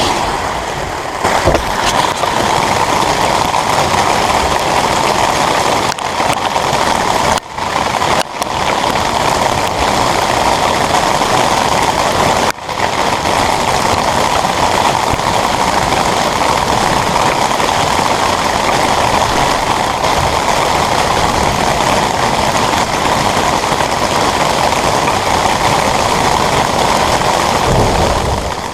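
Heavy rain drumming steadily on a metal shelter roof, with a few brief dips near the middle.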